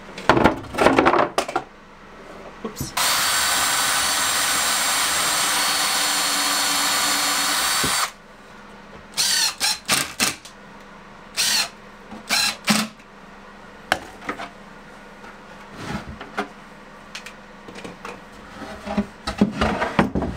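Cordless impact driver driving screws into OSB board: one long run of about five seconds, then a string of short bursts as further screws are set. A clatter of knocks comes in the first two seconds.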